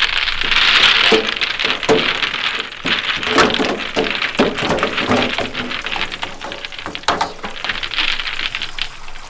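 Tap water running and splashing into a stainless steel tub while eggs in their shells are tipped out of a mesh net bag, with many small clicks of eggs knocking against each other and the tub.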